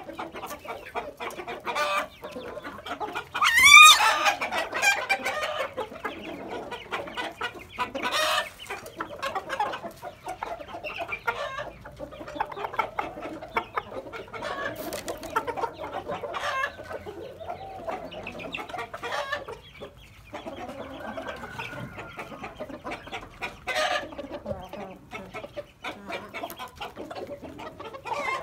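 Aseel chickens clucking and calling on and off throughout, with one loud, sharp call about four seconds in and a few shorter sharp calls later on.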